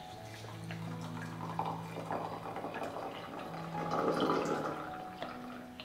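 Hot water at about 80 °C poured from a stainless-steel carafe into a ceramic kyusu teapot over hojicha leaves: a splashing trickle that swells about four seconds in.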